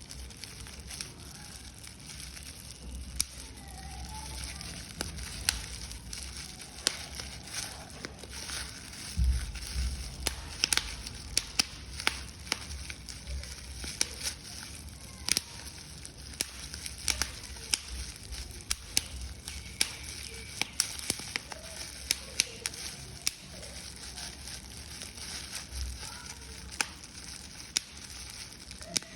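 Paper being crumpled and crushed by hand: irregular crackling and sharp crinkling snaps.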